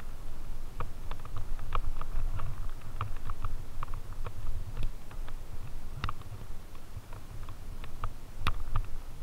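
Fat bike rolling along a dirt trail strewn with dry fallen leaves: a steady low rumble with irregular sharp clicks and rattles, the sharpest about six seconds in and again near the end.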